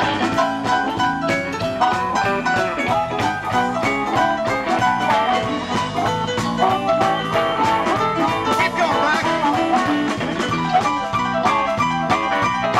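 A live blues band playing an instrumental passage, with keyboard, electric guitar, bass guitar and drum kit together over a steady beat.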